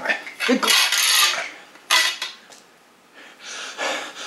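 Metal parts of a shelving rack, its tubular poles and wire shelf frames, rattling and scraping against each other as they are fitted together, with one sharp click about two seconds in.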